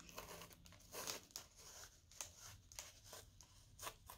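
Faint rustling and soft tearing of tissue paper being pulled away by hand, in a few short crackles.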